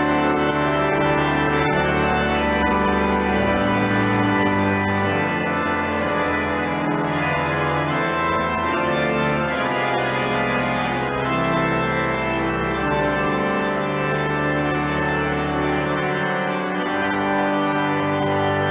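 Organ music: slow, sustained chords over a held bass that moves to a new note every few seconds.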